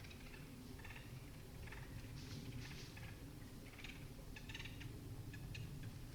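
Footsteps crunching through dry leaf litter and brush in woods, a dozen or so short irregular crunches over a low rumble.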